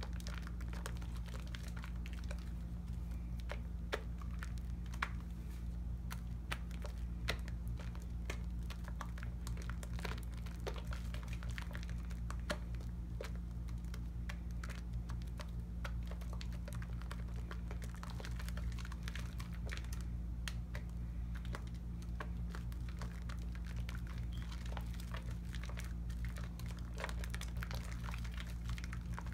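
Hands working a lathered bar of Tone cocoa butter soap, the foam crackling and clicking in a dense, irregular patter, over a steady low hum.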